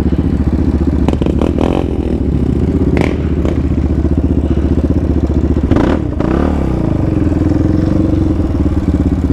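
Yamaha Raptor 700R's single-cylinder engine running steadily at a light trail-riding throttle, with a couple of knocks and clatters from the quad over rough ground, one about three seconds in and another near the middle.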